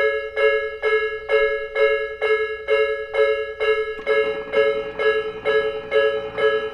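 Japanese level crossing warning bell ringing in a steady rhythm, about two strikes a second. About four seconds in, the rumble of an approaching train joins under the bell.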